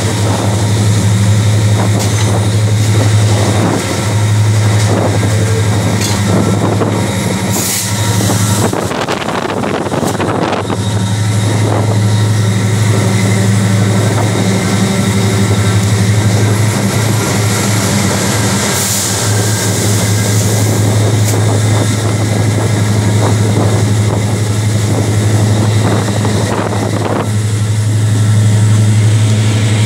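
Diesel locomotive engine running under way, a strong steady low drone heard close up from the locomotive's side, with rail and wind noise. A short rush of louder noise about nine to eleven seconds in briefly covers the drone.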